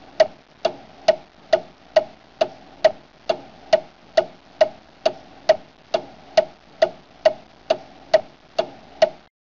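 Steady clock-like ticking, about two sharp ticks a second, evenly spaced, stopping shortly before the end.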